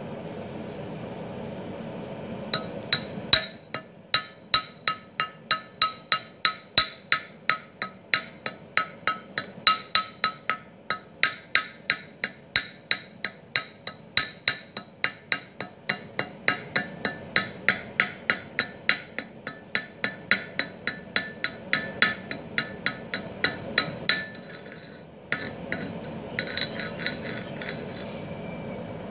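Chipping hammer striking slag off fresh stick-weld beads on a steel plate: sharp ringing metallic strikes about two a second. Near the end they stop briefly, then a few more follow.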